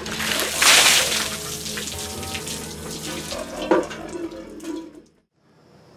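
A bucket of water is tipped over a seated person: a loud rush and splash about half a second in, trailing off into dripping and splattering. Music plays underneath, and the sound cuts off abruptly about five seconds in.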